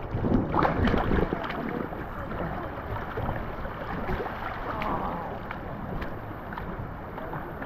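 River water rushing and splashing around inner tubes caught on rocks in a shallow stretch, with a few light knocks.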